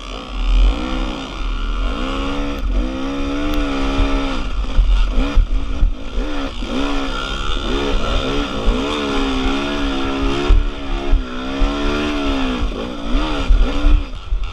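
Dirt bike engine revving up and dropping back again and again as it is ridden hard along a trail, with wind buffeting on the microphone.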